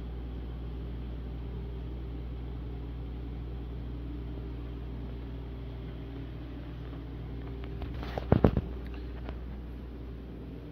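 Steady low indoor hum of room tone, with a quick cluster of sharp knocks about eight seconds in.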